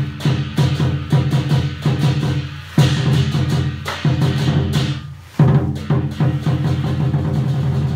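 Lion dance drumming: a deep drum struck in a quick rhythm, with two short breaks, one a little before three seconds in and one past five seconds.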